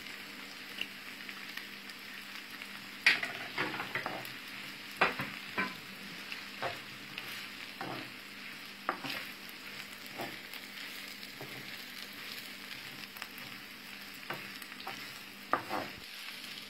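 Thorn-tip shoots and eggs frying in a pan with a steady sizzle. From about three seconds in, a wooden spoon stirs the mixture, with irregular knocks and scrapes against the pan.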